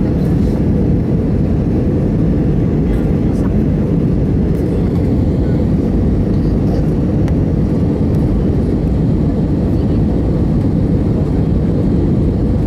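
Steady low rumble of engines and rushing air inside a jet airliner's cabin on final approach to landing.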